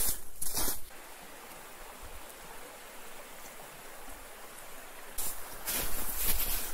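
Small forest river running over rocks, a steady rushing hiss. Louder scuffing noises in the first second and again from about five seconds in.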